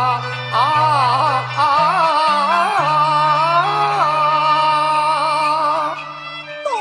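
Cantonese opera song music: a melody line with a wavering vibrato over held low bass notes, growing quieter with a few falling slides near the end.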